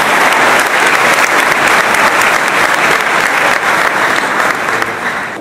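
Audience applauding, a dense crowd clapping that fades near the end.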